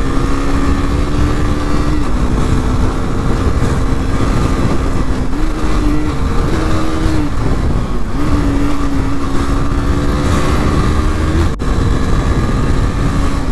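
KTM RC 390's single-cylinder engine running under way, its note stepping up and down several times as the throttle changes, with wind rumbling on the microphone. A sharp click comes near the end as the note drops.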